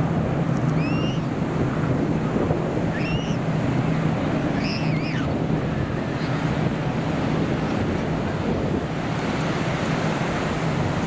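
Steady low drone of a formation of propeller planes, weakening about halfway through, under heavy wind noise on the microphone and a surf-like rush. Three short high chirps sound in the first half.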